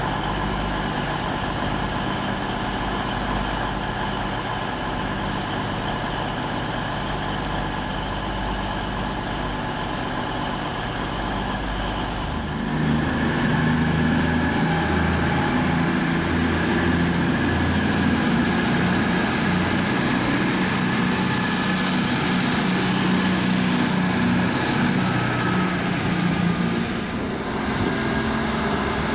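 CrossCountry Voyager diesel multiple units' underfloor diesel engines idling steadily. About twelve seconds in, the engine sound turns suddenly louder and deeper as a Voyager pulls away under power. Near the end a different diesel unit's engine takes over.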